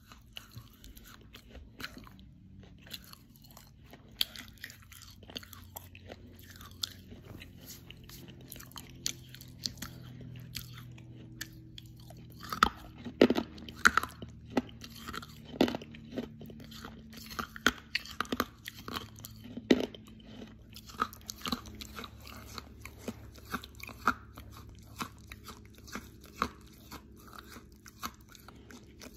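A person biting and chewing pieces of dry edible clay close to the microphone, with sharp cracks as the clay breaks between the teeth. The loudest cracks come in a quick cluster about halfway through, with steady crunchy chewing before and after.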